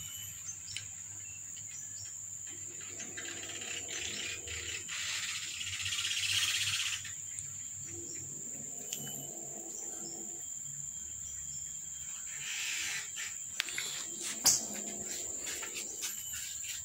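A steady, high-pitched insect drone over scattered soft clicks from a tabby cat feeding from a plastic tub. A few slow swells of louder rushing noise come and go, and there is one sharp click late on.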